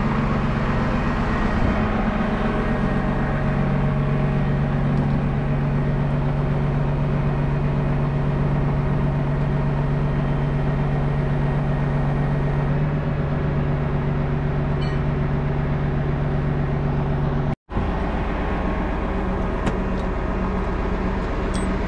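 Heavy tow truck's diesel engine running with a steady, even drone. The sound drops out for an instant about two-thirds of the way through, then the drone carries on.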